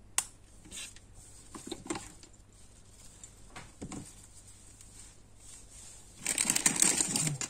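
A single snip of small craft scissors just after the start and light handling taps, then from about six seconds in a loud crinkling of a plastic bag of lace trim being picked up and handled.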